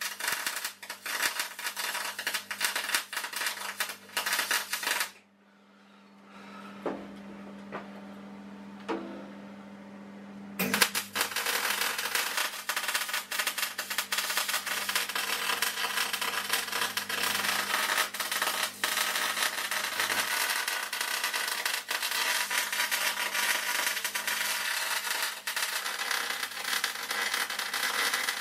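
MIG welding on steel: the arc crackles steadily for about five seconds, stops for about five seconds leaving a low hum and a couple of clicks, then crackles continuously again to the end.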